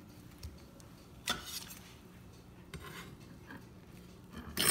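A few separate clinks and knocks of a fork and cutting board against a crock-pot's crock as sliced turkey is moved into it. The sharpest comes about a second in, and a louder cluster comes at the very end.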